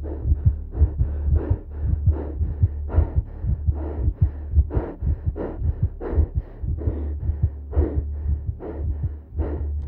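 Muffled, low throbbing pulse beating about two to three times a second over a steady deep drone, with the highs cut away: suspense sound design in the film's soundtrack.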